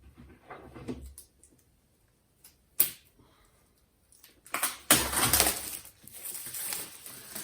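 Apple Magic Keyboard box being handled and opened: one sharp tap a little before three seconds in, then a couple of seconds of scraping and rustling packaging.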